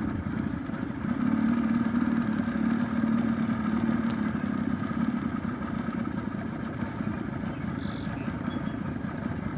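Boat engine running steadily while the choke is held in; it will only keep running on choke, which the owner takes to mean it is not pulling fuel from the tank well enough.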